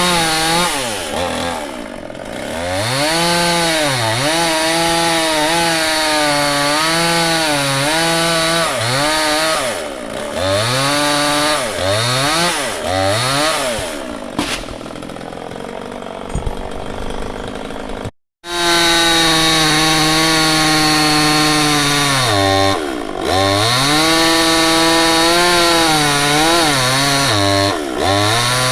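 Stihl two-stroke chainsaw running at high throttle through wood, its engine pitch sagging again and again as the chain bites into the cut and climbing back as it frees. About halfway through it runs lower and quieter for a few seconds, then cuts out abruptly and comes back at full speed, dipping twice more under load.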